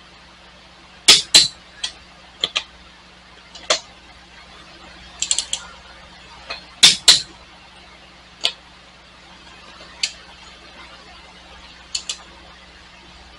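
Torque wrench on a car's wheel lug nuts, being tightened to 100 ft-lb: about fifteen sharp ratchet clicks, some single and some in close pairs, scattered unevenly.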